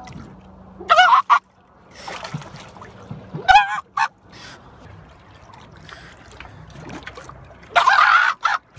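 Northern elephant seal pup crying out three times, each a loud, wavering, honking call followed by a short second note. The pup is taken to be lost, separated from its mother before it had finished molting.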